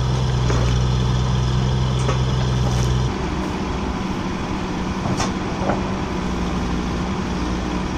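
A Kubota U17-3 mini excavator's diesel engine running with a steady, loud drone. About three seconds in the drone drops to a lower, rougher running sound as the digger swings its load. A few light knocks of timber follow later.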